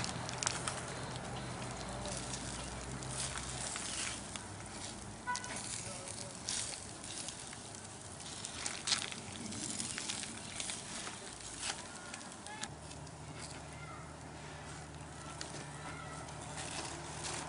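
Barbecue fire crackling, with scattered sharp pops at irregular intervals.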